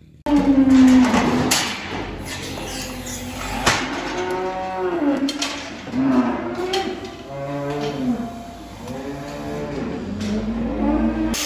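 Dairy cattle mooing: a series of long calls that rise and fall in pitch, starting abruptly a moment in, with a few sharp knocks between them.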